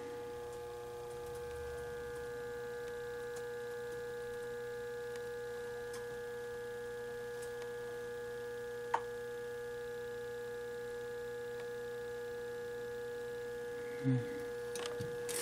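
Hipotronics high-pot tester humming steadily while it is switched on and its output is raised toward 8 kV DC across a 3-500Z tube's plate and grid. A single short click about nine seconds in.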